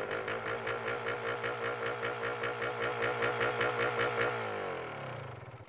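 A motor-like mechanical sound effect running with a steady hum and a rapid, even pulsing. About four seconds in, it winds down in pitch and fades out near the end.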